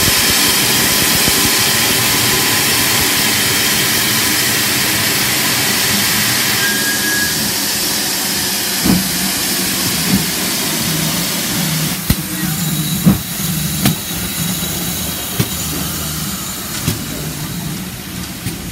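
Steam blowing off loudly from the safety valves of GWR Modified Hall 4-6-0 steam locomotive No. 6990 as it stands with its boiler at full pressure. The hiss eases about a third of the way in, and a few sharp knocks come later on.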